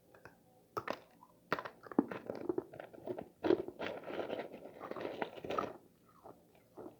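A person biting and chewing a mouthful of freezer frost, crunching. A few sharp bites come first, then dense crunching that dies down near the end to a few softer crunches.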